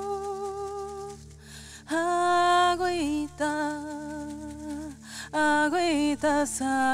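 A woman singing long wordless notes with a slight vibrato, in a few phrases with short breaths between. The later phrase has quick turns up and down in pitch.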